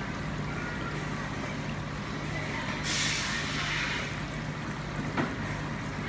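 A steady low machine hum with a background hiss, a louder hiss rising suddenly about three seconds in and fading about a second later, and one sharp click near the end.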